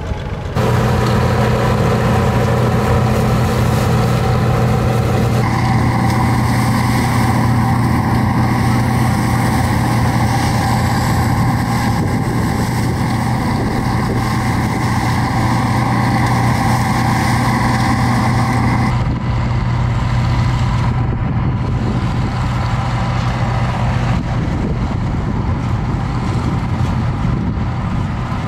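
Bizon Super Z056 combine harvester harvesting soybeans: its six-cylinder diesel engine and threshing machinery run at a steady working speed with a constant hum. The sound changes abruptly about five seconds in and again about two-thirds of the way through.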